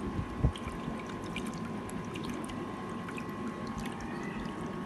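Water trickling and sloshing over a sturgeon as hands work at its mouth, with small wet clicks and one thump about half a second in, over a steady high hum.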